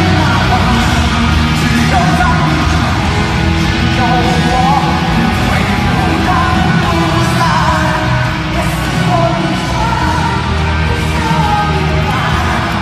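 Live rock band playing loudly through a stadium sound system, with a voice singing over the music.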